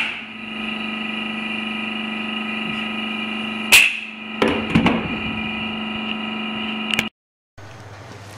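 A pneumatic coil nailer fires once with a sharp loud bang about four seconds in, driving a nail into the plywood loft floor, followed by a few smaller knocks and clatter, all over a steady hum. Near the end the sound cuts abruptly to a quieter background.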